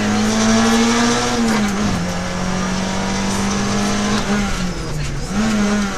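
Peugeot 106 XSi rally car's four-cylinder petrol engine heard from inside the cabin, running hard at high revs. Its pitch sags about a second and a half in, holds steady, then dips twice between about four and five seconds before climbing again.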